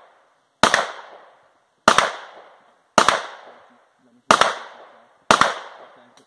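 Pistol shots fired one at a time, five in all, roughly a second apart, each followed by a fading echo.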